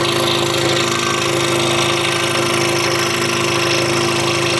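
Scroll saw running steadily while its blade cuts a wooden jigsaw puzzle: a constant motor hum with the hiss of the blade working through the wood.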